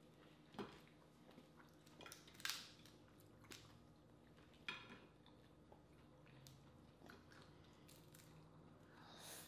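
Snow crab legs being cracked and pulled apart by hand: several scattered sharp cracks and clicks of shell, the loudest about two and a half seconds in, with quiet chewing and plate sounds between them.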